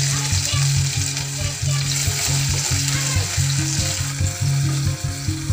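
Crushed ginger and garlic sizzling in hot oil in a clay pot while a wooden spatula stirs them. Under the sizzle runs a low, evenly repeating bass line of background music.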